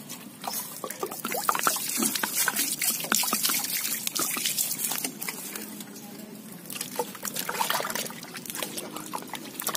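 Water splashing and sloshing in a cooking pot as a whole raw turkey is washed by hand, in two spells with a short lull between.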